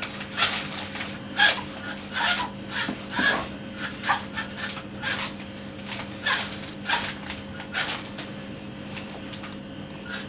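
Maverick Scout 1/10 electric RC rock crawler, freshly powered up, being tested by working its controls: a rapid, irregular series of short whirring bursts, some bending briefly in pitch.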